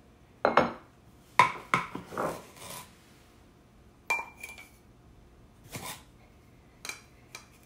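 Measuring cups knocking and clinking against a large glass canister as white sugar is scooped out and measured: a string of about eight sharp knocks, one about four seconds in ringing briefly like glass.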